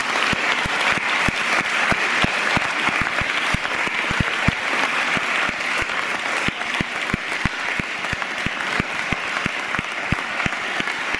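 Audience and massed choir singers applauding, a dense steady clapping with the sharp individual claps of someone close by standing out.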